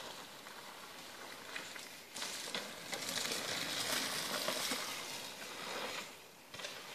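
Mountain bike tyres rolling and crunching over a dirt trail, loudest for a few seconds in the middle as a rider passes close.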